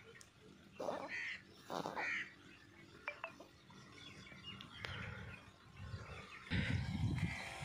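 A crow caws twice, about a second apart, with a few faint bird chirps after. Near the end a louder low rumble sets in.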